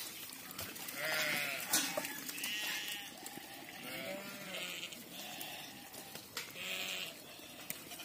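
A flock of sheep bleating, one call after another and some overlapping, with a brief sharp clack about two seconds in.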